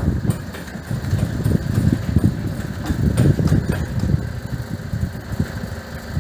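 A motor running with a low, uneven rumble.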